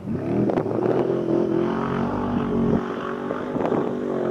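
A motor running with a steady drone, its pitch rising briefly at the start and then holding level.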